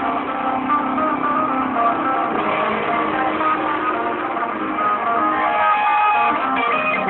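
A rock band playing live, with electric guitars over bass guitar.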